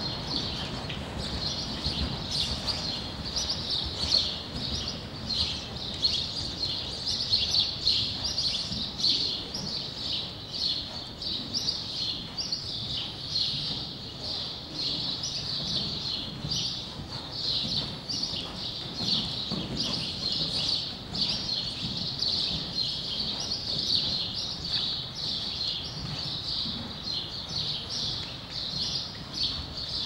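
Small birds chirping in a rapid, unbroken run of short high calls, over the soft low thuds of a horse's hooves trotting on arena sand.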